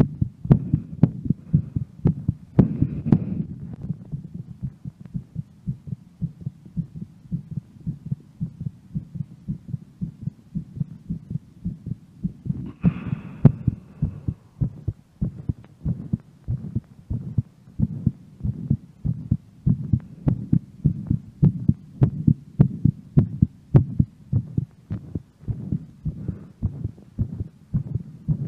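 A woman's heart beating fast and steadily after a workout, a regular series of low thumps. Two breaths come through, about three seconds in and again near the middle.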